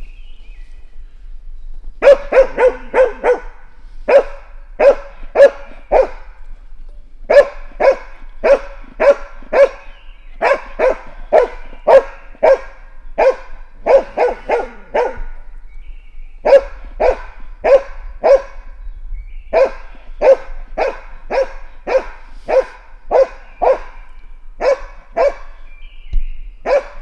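Grey Norwegian elkhound barking at wild boar: a steady bay in quick runs of several barks, about three a second, with short pauses between runs, starting about two seconds in.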